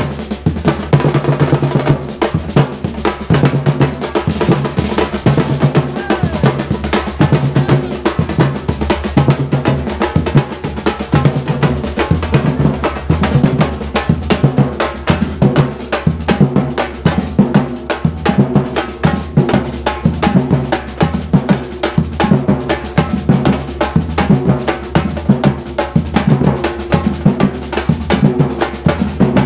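Afro-Brazilian bloco afro drum ensemble playing a steady, driving rhythm: deep bass drum beats over rapid snare and rim strikes.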